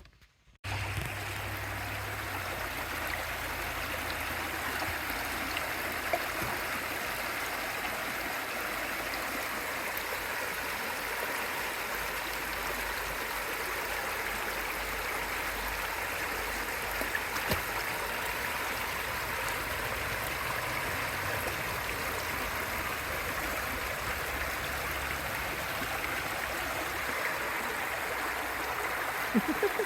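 Creek water flowing in a steady, even rush, starting abruptly about a second in after a moment of near silence.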